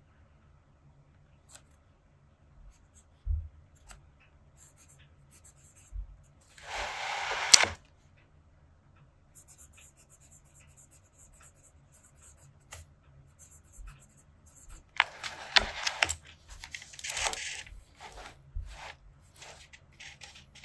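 Fountain pen with a double broad nib scratching across paper in short writing strokes, with pauses between words. A longer stroke comes about seven seconds in, and a denser run of strokes around two-thirds of the way through.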